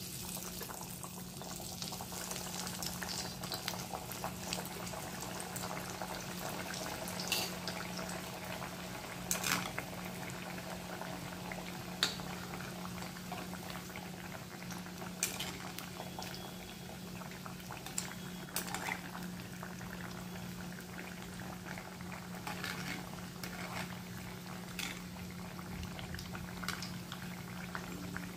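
Slices of alu vadi (gram-flour-coated colocasia leaf roll) deep-frying in hot oil in a kadhai: a steady sizzling hiss, with a few sharp clicks now and then as the pieces are turned with a slotted steel spoon.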